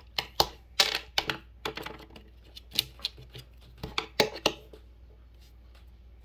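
Small metal hand tools and parts clinking and clattering as they are handled and set down: about a dozen sharp, irregular clacks, stopping after about four and a half seconds.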